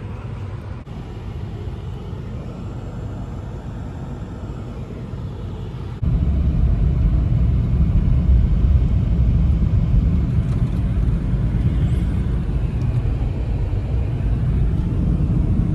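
Car running, a steady low rumble that gets abruptly louder about six seconds in.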